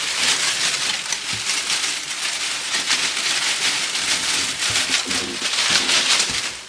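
Foley rustling of a grass-like prop, swished and crushed continuously in quick strokes to stand in for a body running through tall grass.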